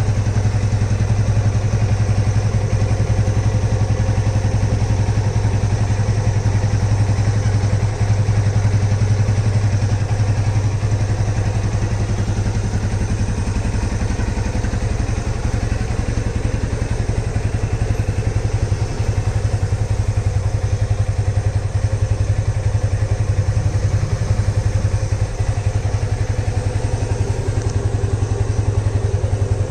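Yamaha FZ25's single-cylinder engine idling steadily.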